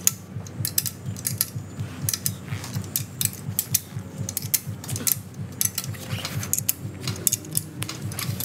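Ratcheting ring spanner clicking as the bolts on a go-kart rear axle bearing housing are done up, in short runs of rapid clicks with brief pauses between strokes.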